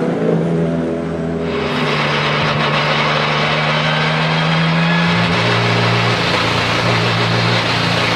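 Porsche 997 GT2 RSR's twin-turbo 3.9-litre flat-six running at steady, low revs with no rise in pitch, a steady hiss joining about a second and a half in.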